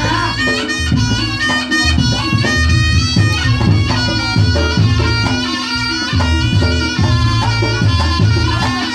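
Reog Ponorogo gamelan music: a slompret shawm plays the melody in held, stepping notes over regular kendang drum strokes and gong.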